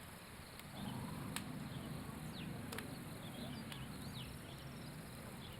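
Faint outdoor ambience with a low steady hum. A few short, falling high chirps sound in the middle, and there are a couple of faint clicks.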